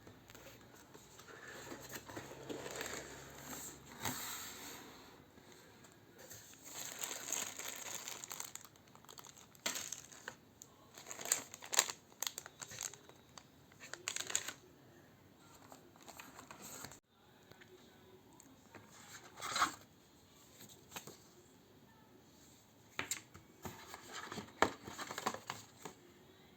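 Packaging of a keyboard being unboxed, crinkling and rustling in irregular bursts, with a few sharper clicks and knocks as the box and wrapping are handled.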